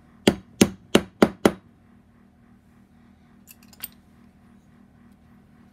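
Five quick, sharp metal taps, about three a second, as a small tool taps a bearing into place on the camshaft in the cylinder head of a model four-stroke engine. A few faint small metallic clicks follow about three and a half seconds in.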